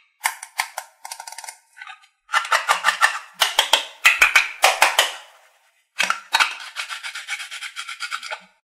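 Rapid crackling rip of the velcro on a toy play-food kiwi as its two plastic halves are pulled apart and pressed back together, in three spells.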